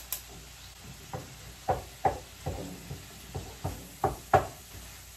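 Wooden spatula knocking against a pan as food is stirred: a string of irregular knocks, about nine in three and a half seconds, the loudest near the end.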